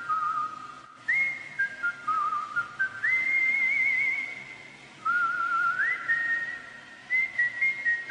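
A whistled tune: a single clear melody line of held notes, some wavering, with several quick upward slides to a higher note.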